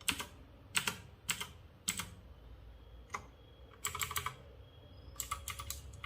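Cosmic Byte GK16 Firefly mechanical keyboard's clicky blue switches being pressed. Four single key clicks come about half a second apart, then two quick runs of several clicks each.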